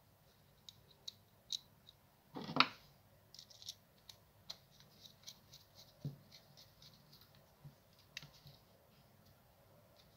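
Faint small clicks and scrapes of a Makita impact driver's plastic trigger switch being handled and a screwdriver working at its wire terminal screw, with one louder clatter about two and a half seconds in.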